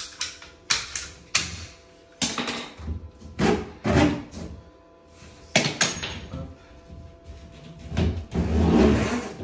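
A series of sharp clicks and snaps from a hand pipe cutter closing on PER water pipe. Louder knocks and rustling follow as the flexible red and blue PER pipes are bent and pulled against the plasterboard, loudest near the end.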